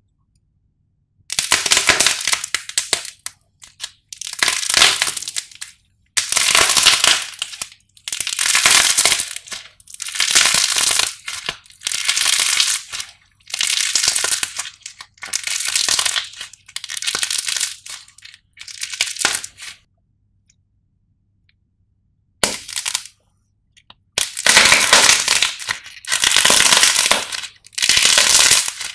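Hardened crust on clay loaves shaped like twisted bread crackling and crunching as hands squeeze and tear them apart. It comes in about a dozen squeezes of a second or two each, with a pause of a couple of seconds around two-thirds of the way through.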